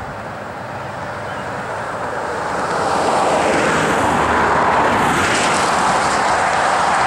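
Cars passing close by on a highway: tyre and engine noise swelling as they go past, building about halfway through and staying loud.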